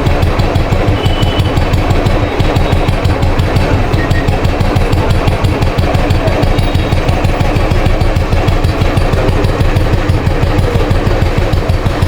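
Royal Enfield Bullet 350 cast-iron single-cylinder engine running steadily with an even exhaust beat.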